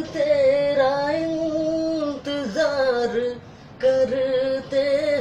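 A solo voice singing a Hindi film-song melody in long held notes that slide between pitches, with short breaths between phrases.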